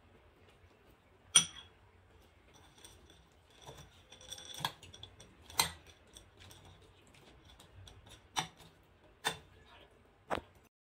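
Metal spoon clinking against ceramic bowls, about six sharp ringing clinks with light scraping and rattling between them, as food is spooned onto a dish of dry cat kibble.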